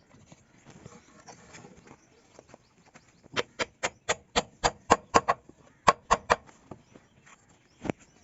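Hammer tapping on wood: a quick run of about a dozen sharp knocks, roughly four a second, then a single knock near the end.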